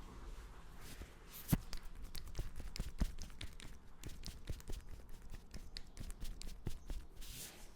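Hands massaging a head: fast, irregular taps and rustles of fingers working through hair and over the scalp, with two sharper clicks about a second and a half and three seconds in.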